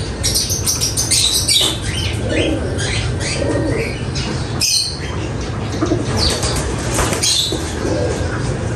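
Racing pigeons in a loft cooing several times, with scattered wing flaps and clattering among the perches.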